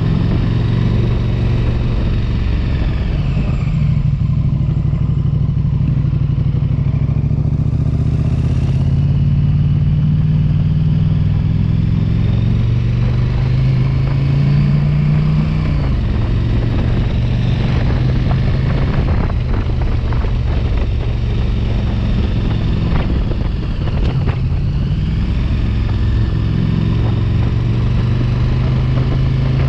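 Motorcycle engine running under way, a steady low drone whose pitch rises gradually and then drops about halfway through.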